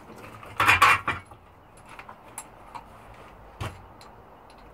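Steel clinking and clattering as blacksmith's tools and a steel bar are handled on the anvil: a quick cluster of metal knocks about a second in, then a few single light clinks.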